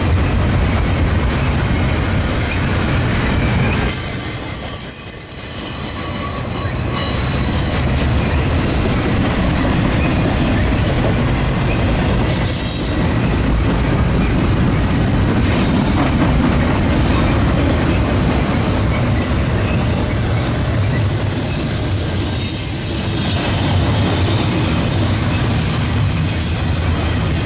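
Double-stack intermodal freight train's well cars rolling past: a steady rumble of steel wheels on rail, with a high wheel squeal about four to seven seconds in.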